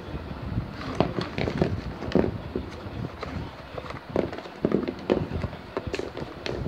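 Small plastic paint bottles tipped out of a cardboard box, knocking and clattering against one another and onto a table, with the box being handled. Irregular light knocks, several a second.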